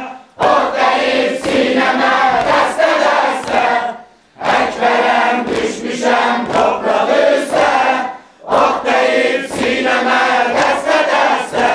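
A group of men singing an Ashura mourning lament together in Azerbaijani Turkish, in three phrases of about four seconds each with short breaks for breath between them.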